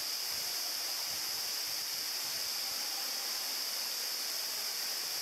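Steady rush of a mountain stream flowing over rocks, an even hiss that does not change.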